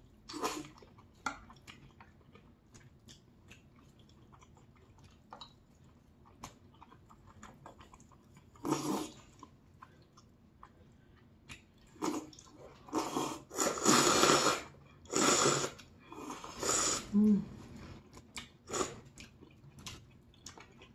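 Close-miked eating: quiet chewing and small mouth clicks, then loud slurps of black-bean-sauce noodles (jjajangmyeon), one about 9 s in and several in a row in the second half.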